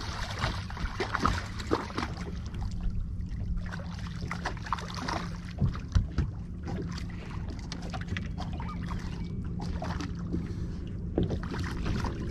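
A hooked striped bass splashing at the surface beside a bass boat as it is drawn in and landed by hand, with scattered short splashes and knocks over water lapping at the hull and a steady low hum.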